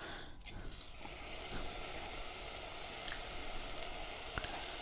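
Marinated chicken breast sizzling quietly in a hot pan, with a few faint pops, as it starts to half-cook in its own juices.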